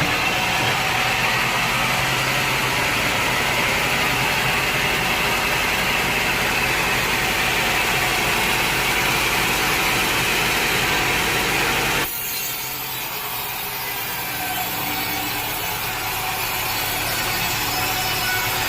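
Sawmill saw cutting steadily through a log, a continuous dense sawing noise. About twelve seconds in, the sound changes abruptly: it drops quieter, then slowly builds again.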